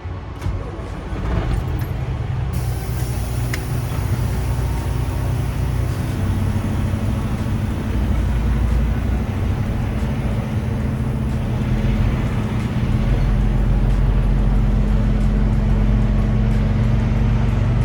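Semi truck's diesel engine running as the truck pulls off the scale, a steady low drone that grows louder about a second in and again near thirteen seconds in.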